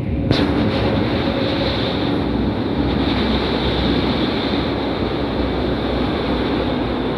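Berlin U-Bahn small-profile train running along the platform through the underground station: a loud, steady rumble and rush of wheels on rails that swells suddenly about a third of a second in.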